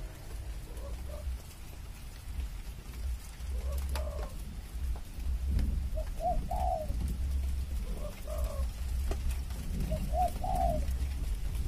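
Spotted doves cooing: short phrases of a few notes, repeating every two to three seconds over a steady low rumble.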